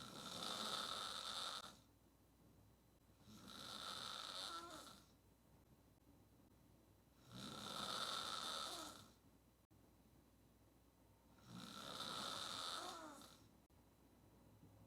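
A woman snoring on her back through a wide-open mouth: four long, noisy snores, each almost two seconds, coming about every four seconds with quiet breaths between.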